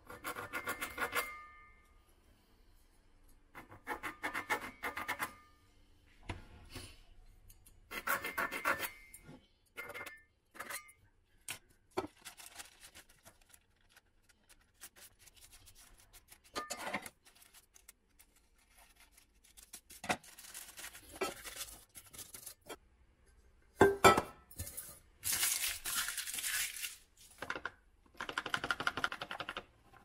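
A ballpoint pen scratching on parchment paper as it traces around a round metal cake tin, in several short strokes with faint squeaks. Then parchment paper is folded and handled with rustling and clicks, with one sharp knock a little past the middle.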